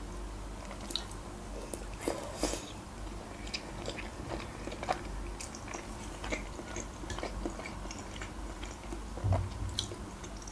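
Close-miked chewing of soft boiled pelmeni in cheese sauce: wet, sticky mouth smacks and small clicks at an irregular pace, with a soft thump about nine seconds in.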